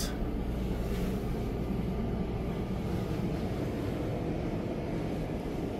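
Steady low hum and rumble of a yacht cabin's air conditioning, even and unchanging.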